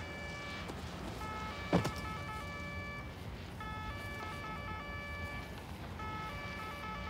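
Film score: a repeating phrase of sustained high notes stepping between pitches, over a low drone. Nearly two seconds in there is a short, loud downward swoop.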